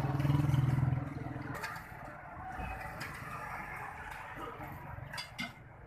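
A low rumble fades out over the first two seconds, leaving quieter background noise broken by a few short taps, about a second and a half in and twice near the end.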